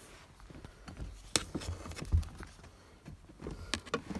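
A few light metal clicks and knocks as a lockout rod is slid and fitted into a B&M automatic shifter, with a sharp click a little over a second in and a knock about two seconds in.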